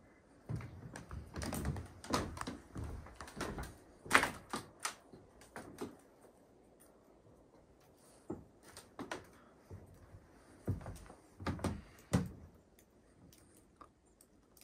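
Footsteps and knocks on wooden deck boards: irregular clusters of thuds and clicks, with a pause of a couple of seconds in the middle.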